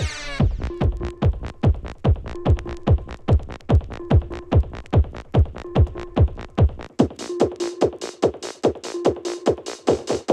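Techno playing from a vinyl DJ set: a steady four-on-the-floor kick drum, a little over two beats a second, with a short repeating synth note. About seven seconds in, the deep bass drops out and bright hi-hats come in over the beat.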